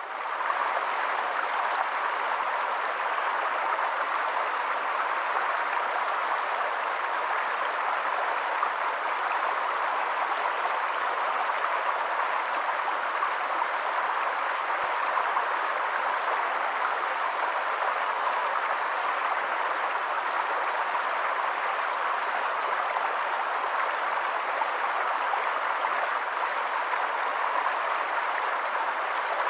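Steady, even rush of running water, like a stream, that fades in at the very start and holds unchanged throughout.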